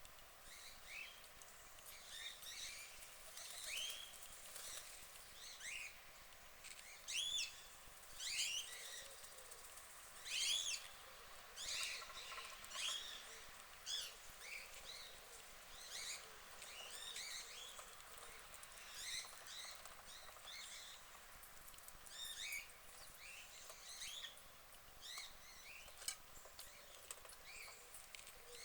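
Small birds chirping: many short, high calls, some sliding in pitch, coming a few at a time throughout.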